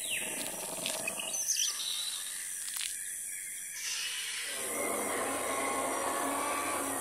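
Jungle ambience: scattered bird calls and chirps over a steady high insect-like hiss, with a fuller rushing swell coming in about four and a half seconds in.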